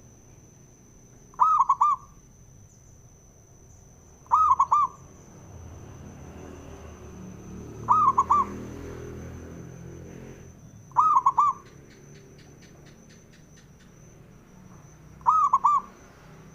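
Zebra dove (perkutut) cooing: five short phrases of quick, rolling coos, one every three to four seconds. A faint steady high-pitched whine runs underneath.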